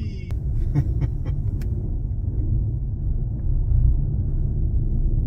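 Steady low rumble of a car ferry under way, heard from inside a pickup truck's cab parked on its deck, with a few light clicks in the first couple of seconds.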